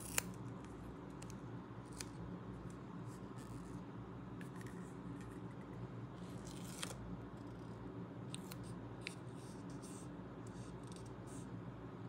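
Fingers handling small paper and plastic toy pieces: scattered sharp clicks and light crinkles, with a longer rustle about seven seconds in as a paper sticker is peeled off its sticker sheet. A faint steady hum runs underneath.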